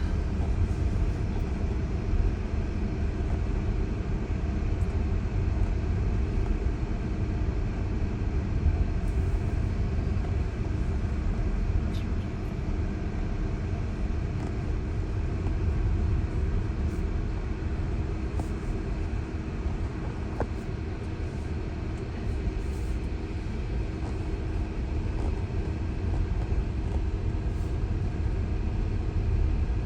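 Steady low road and tyre rumble heard inside a Tesla's cabin while it drives, with a faint steady hum under it.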